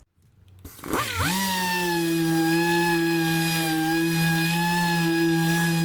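Dual-action sander with 80-grit paper starting up: its whine sweeps up in pitch about a second in, then runs at a steady speed, roughing up cured body filler.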